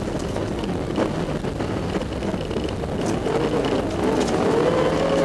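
Rally car engine and tyre noise heard from inside the cabin at speed on a snowy stage. In the last two seconds the engine note climbs steadily as the car accelerates.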